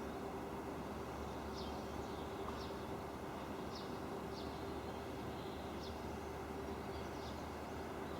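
Barn swallow giving about seven short, high chirps spaced roughly a second apart, over steady background noise with a constant low hum.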